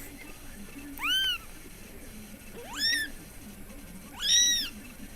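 A domestic cat meowing three times, each meow rising and then falling in pitch, the last one the longest.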